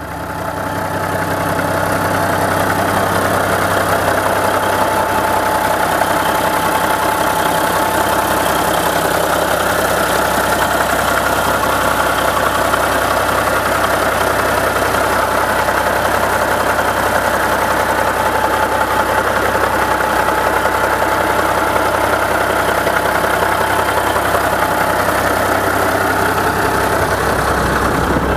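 Caterpillar 3406 inline-six diesel engine of a Kenworth W900 idling steadily, heard close to the open engine bay. It fades in at the start, then holds an even idle with no revving.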